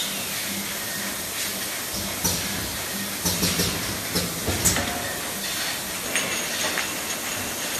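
Automatic pneumatic linear paste-filling machine running: a steady hiss over a low hum, broken by irregular short sharp bursts of air exhaust and clacks from its cylinders.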